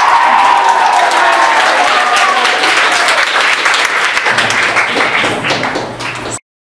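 Students cheering and clapping, shouted voices strongest in the first seconds over dense applause; the sound cuts off abruptly just before the end.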